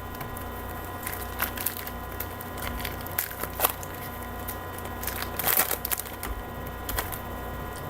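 A Topps Chrome Baseball card pack being torn open and its wrapper crinkled as the cards are handled: scattered short crackles and ticks over a steady electrical hum.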